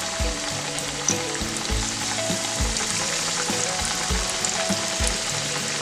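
Battered hake fillets sizzling and crackling as they deep-fry in hot oil in a pan, over background music with a steady low beat.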